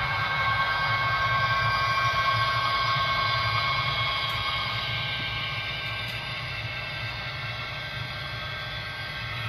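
Model train of loaded coal hopper cars rolling along the track with a continuous mechanical rattle and a faint steady whine. It is loudest about two seconds in, then slowly fades as the train moves off.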